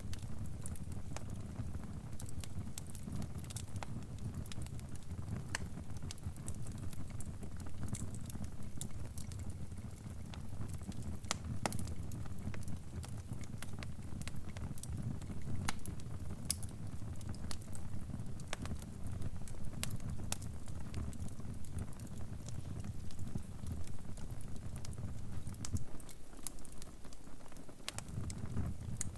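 Wood fire crackling: a steady low rumble of flames with irregular sharp crackles and pops scattered throughout. The rumble drops away briefly near the end.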